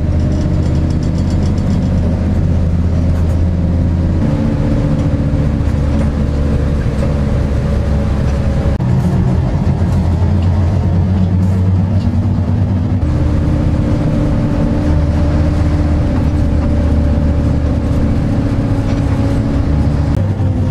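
Steady drone of a moving bus's engine and road noise, heard from inside the cabin; its tone shifts abruptly a few times.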